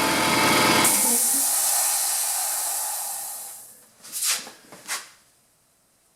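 Electric air compressor motor and pump running, then shutting off abruptly about a second in as the pressure switch reaches its 115 psi cut-out. The unloader valve then hisses, venting pressure from the pump line and fading over a couple of seconds. Two short bursts of noise follow around four seconds in.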